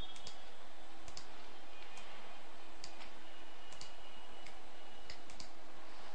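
Computer mouse clicking: about a dozen sharp, irregularly spaced clicks over a steady low hum and hiss from the recording.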